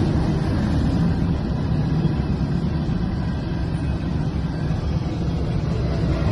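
Train rumbling past a railroad crossing, a steady low rumble with no horn.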